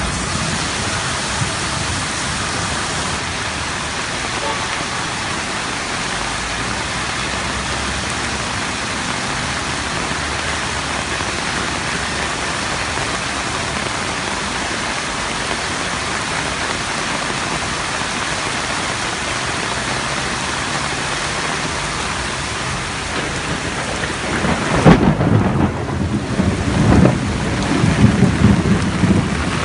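Heavy rain and rushing floodwater, a steady hiss. About 25 seconds in, loud, uneven low rumbling joins it for the last few seconds.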